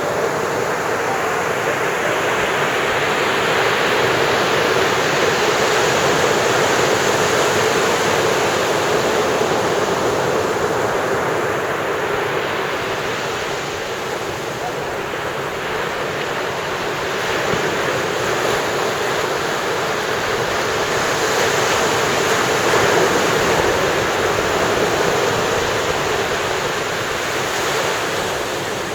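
Ocean surf breaking on the shore: a continuous wash of waves that swells louder and eases off in slow surges over several seconds.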